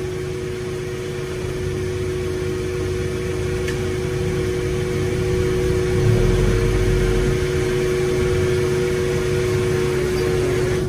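Steady running of engine and machinery on a fishing boat: a low rumble with a constant humming tone, a little louder from about six seconds in.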